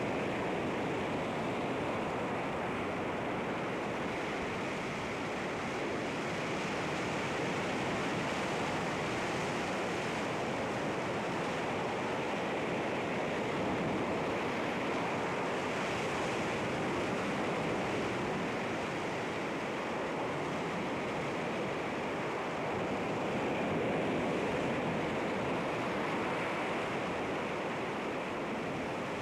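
Sea waves washing against rocks: a steady rushing wash of surf that swells and eases slowly, with no separate crashes.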